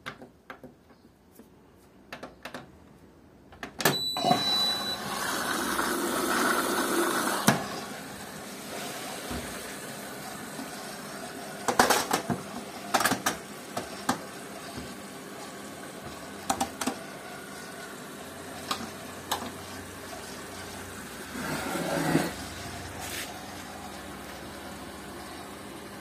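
Hotpoint Ariston front-loading washing machine gives a short electronic beep as the programme starts, then water rushes in as the machine begins to fill. A steady hum carries on after that, with scattered clicks and knocks and a second brief surge of inflowing water near the end.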